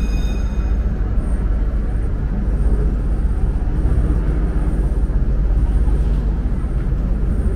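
Steady low rumble of a ferry's engine and motion, with the tail of background music dying away in the first second.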